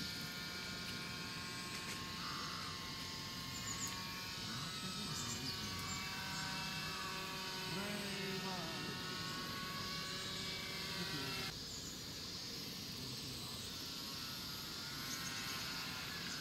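Small electric RC floatplane's motor and propeller whining in flight, a steady buzzy whine that sweeps down and back up in pitch about halfway through. About two-thirds of the way in it changes abruptly to a different, steadier whine.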